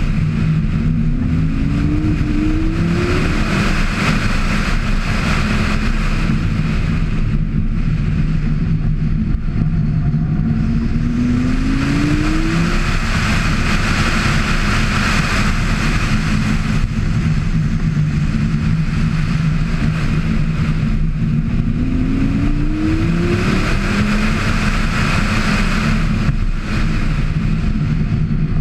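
Lamborghini Gallardo's V10 engine running hard, its pitch climbing three times as the car accelerates and dropping back between, with a rush of wind and road noise that swells and fades with speed.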